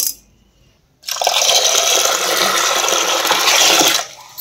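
Tap water running into a vessel of measured dal (lentils) to wash them: a stream that stops right at the start, then runs again from about a second in for about three seconds before cutting off.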